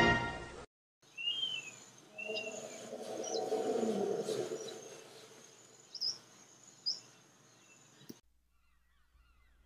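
Music fading out, then a wildlife ambience of birds chirping, with a lower animal call in the middle that slides down in pitch. The ambience cuts off suddenly about eight seconds in.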